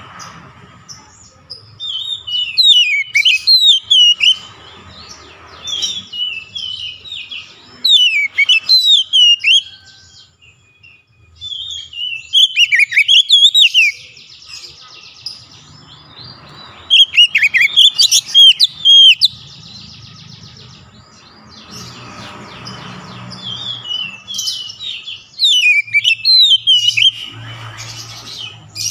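Oriental magpie-robin singing: loud phrases of clear whistles and warbles that swoop quickly up and down in pitch, in about six bursts of one to two seconds with short pauses between them.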